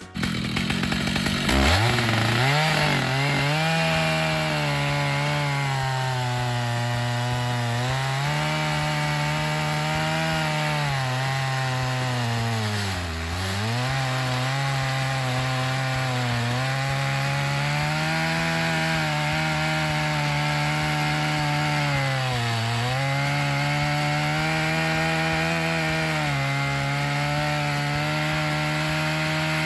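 Stihl MS 881's large two-stroke engine revving up to full throttle about a second and a half in, then running flat out as the mill-mounted chainsaw cuts through a white oak log. Its pitch sags several times as the bar bogs in the wood, most deeply about 13 seconds in.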